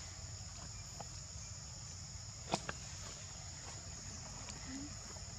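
Steady high-pitched insect chorus droning in forest, with a low background rumble and a sharp click followed by a smaller one about two and a half seconds in.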